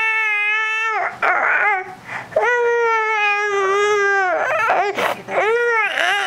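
Baby crying: long, high, steady wails with gasping breaths between them, one long cry after a short break, then shorter cries near the end.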